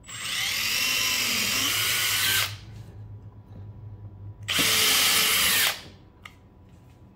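Small cordless drill pre-drilling screw holes through a plastic crate wall, in two steady runs: one of about two and a half seconds from the start, then a shorter one of about a second past the middle.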